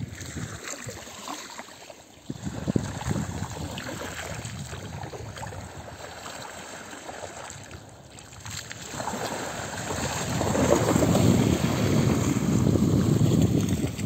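Wind buffeting the microphone over small sea waves washing up on a sandy shore; the gusting noise grows louder about nine seconds in.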